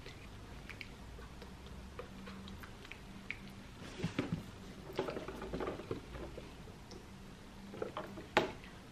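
Faint scattered clicks and rustles of hand movements, with a sharper click about eight seconds in as a cardboard product box is handled.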